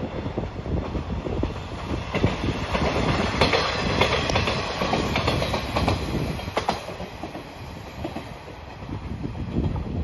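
The Seto-Ohashi Anpanman Torokko, a diesel railcar train, passing close by. It grows louder to a peak about four seconds in, with a run of wheel clacks over the rail joints, then fades as it moves away.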